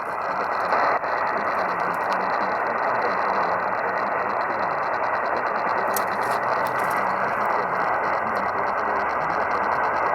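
Radio static hiss from a weather-radio receiver on a weak signal, with scattered clicks and a faint broadcast voice buried under the noise.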